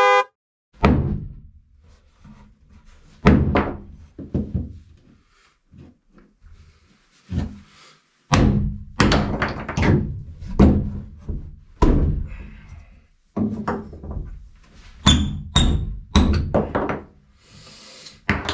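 Hammer blows on wood: nailing wooden support blocks to the 2x3 wall framing, in irregular groups of strikes with pauses between.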